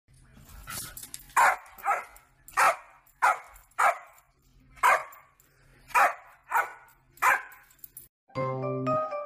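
Dog barking: about ten short, sharp barks at uneven spacing. Near the end the barking stops and a light tune begins.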